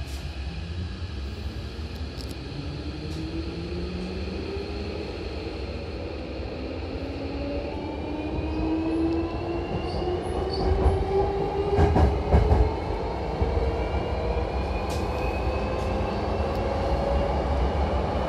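Electric commuter train pulling away, heard inside the car at its doors: the motor whine rises steadily in pitch as the train picks up speed, over the low rumble of the running gear. A short cluster of clanks from the wheels and track comes about two thirds of the way through.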